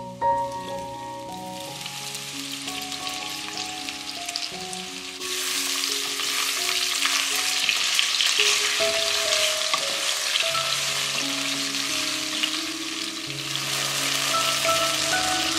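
Chunks of beef sizzling as they brown in hot oil in a pot, the frying growing much louder about five seconds in. Background music plays underneath.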